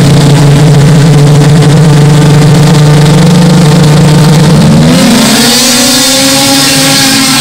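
A line of two-stroke racing snowmobiles running steadily at the start line, their engines holding one pitch together. About five seconds in they rev up hard and launch, the engine note rising in pitch with a rush of track and snow noise.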